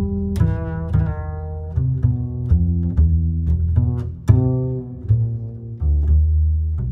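Background music of plucked low string notes over a bass line, about two notes a second.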